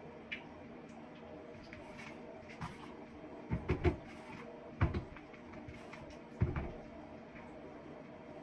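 Kitchen handling noises: a few dull knocks and clunks, three in quick succession about three and a half seconds in, then one near five seconds and another about a second and a half later, with a few small clicks over a steady low hum.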